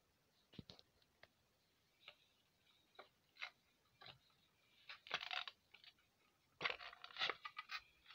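Quiet handling noise: scattered light clicks and a few short scrapes and rustles, busiest about five seconds in and again near the end.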